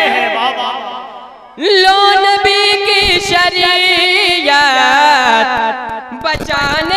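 A boy's voice singing a naat unaccompanied into a microphone, drawing out long held notes with wavering ornaments. One phrase fades away, and about a second and a half in a new high note is taken up and held. It breaks off briefly near the end before the singing resumes.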